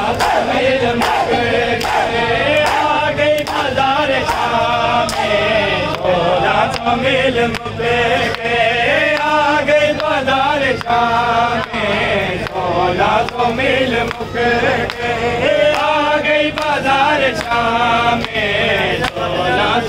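Men chanting a Punjabi nauha (mourning lament), with the sharp slaps of bare-handed chest-beating (matam) keeping a steady beat under the voices.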